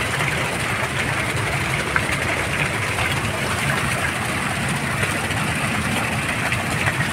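Water from a bell-shaped fountain jet pouring down and splashing, a steady even noise.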